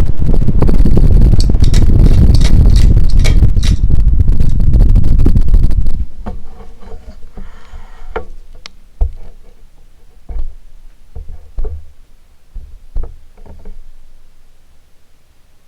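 Strong rushing air from the Hunter Auberville ceiling fan's downdraft buffeting the microphone. It cuts off abruptly about six seconds in, leaving a few scattered knocks and light clicks over a faint background.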